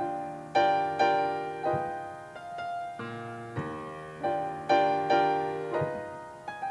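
Solo piano playing slow chords, each struck and left to ring and fade.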